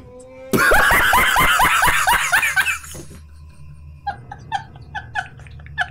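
A man bursting into loud laughter, a rapid run of ha-ha pulses lasting about two seconds. After a short pause, quieter, higher-pitched giggling follows in short repeated bursts.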